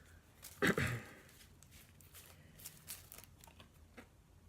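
Faint rustles and light clicks of trading cards being handled and flipped over by hand, with a short vocal sound under a second in.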